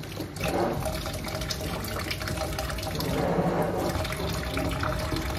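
Tap water running steadily and splashing as a baby's face is washed under it.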